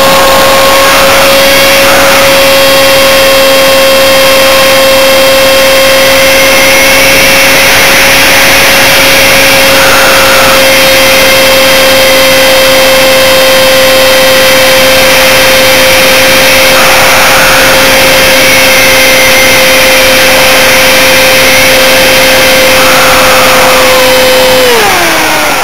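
Electric motor and propeller of a radio-controlled model plane whining at a steady high pitch under power, with rushing air, heard close up from a camera on the plane's nose. Near the end the pitch falls away as the motor slows.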